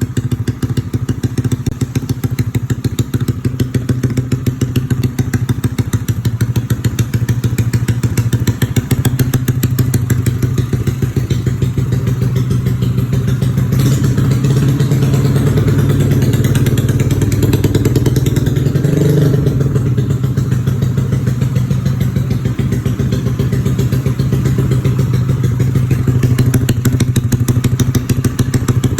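Yamaha Xeon RC scooter's single-cylinder four-stroke engine, bored up to 155cc, running at idle with a quick, even firing beat. It rises briefly in a light rev about two-thirds of the way through, then settles back to idle.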